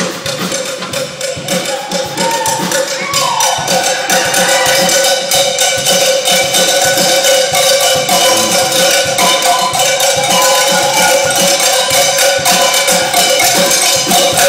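Live rock band playing, with cowbells struck in a steady rhythm over the music. It grows a little louder about four seconds in.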